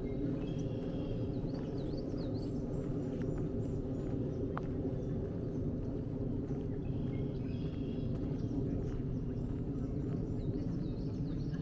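Wild birds singing in woodland in two spells of short chirping phrases, several seconds apart, over a steady low rumble.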